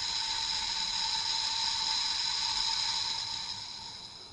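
A sustained high-pitched electronic ringing over a hiss, fading away near the end.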